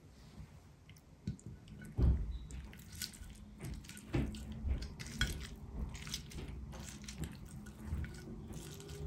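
A metal fork pulling slow-cooked lamb shank meat off the bone on a ceramic plate: the soft tearing of the meat comes apart easily, with irregular clicks and scrapes of the fork tines against the plate.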